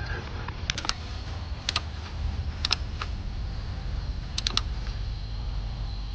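Click-type torque wrench set to 22 foot-pounds clicking as intake manifold bolts reach torque: four short clusters of two or three sharp clicks each, over a steady low hum.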